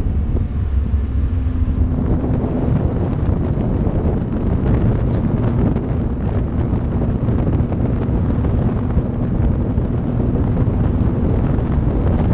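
Wind buffeting the microphone on the back of a moving kit car, over steady engine and road noise.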